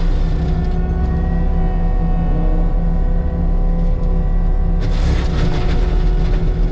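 Heavy diesel land-clearing machine running steadily with a deep rumble and steady whining tones. A harsher, hissing rush of noise comes in sharply about five seconds in.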